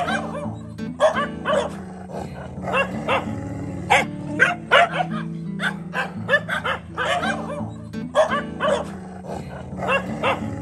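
Village dogs barking at one another in a standoff, in rapid bursts of sharp barks about every second, over background music with steady low tones.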